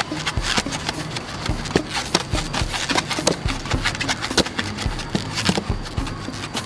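Irregular sharp knocks and clicks on wood, a few a second, over a low steady hum.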